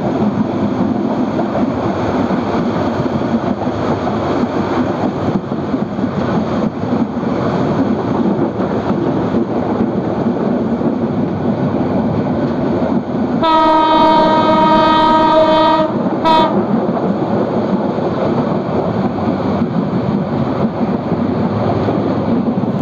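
Train running along the track, heard from on board: a steady rumble of wheels on the rails. About 13 seconds in, the train horn sounds one long blast of about two and a half seconds, then a short toot.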